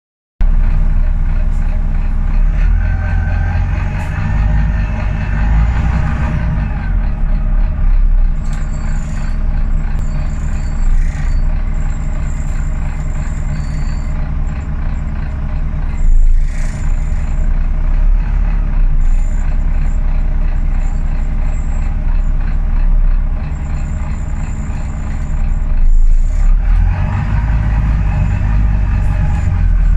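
Volvo B9TL double-decker bus's six-cylinder diesel engine and drivetrain running on the move, heard from inside the upper deck, with a heavy steady low drone. The pitch rises as the bus accelerates a few seconds in and again near the end, with a sharp knock about halfway and scattered high squeaks from the body.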